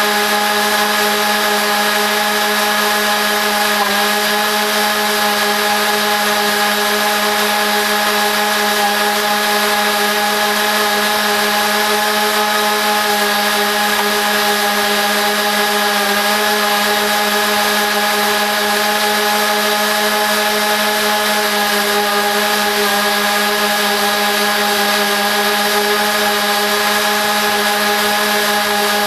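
Lawn mower engine running steadily, the recording played back at four times normal speed, giving one unbroken machine drone.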